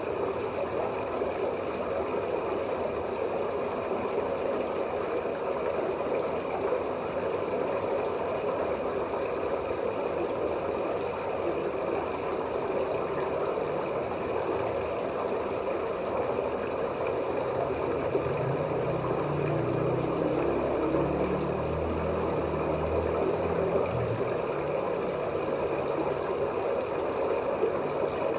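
Steady muffled rush of pond water heard through a phone recording underwater, with a low rumbling that comes in about two thirds of the way through and fades a few seconds later.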